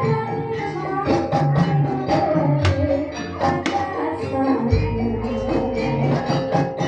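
Gamelan-style ensemble music accompanying an ebeg dance: struck metal-keyed instruments ringing in steady tones over frequent sharp percussion strokes, with a jingling, tambourine-like rattle. A deep low tone comes in about two-thirds of the way through.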